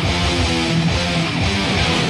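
Instrumental passage of a thrash metal song: electric guitars and bass guitar playing with no vocals.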